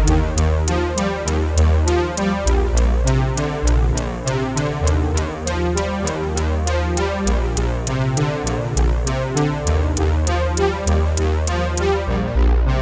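Electronic background music: a steady drum-machine beat with quick regular ticks over a deep bass line and synthesizer chords.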